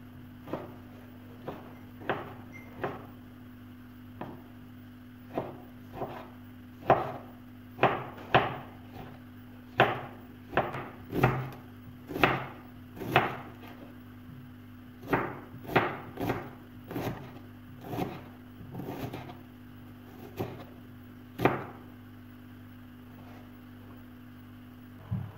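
Kitchen knife chopping tomato and then onion on a wooden cutting board: short, irregular knocks of the blade on the board, about one or two a second, thinning out near the end. A steady low hum runs underneath.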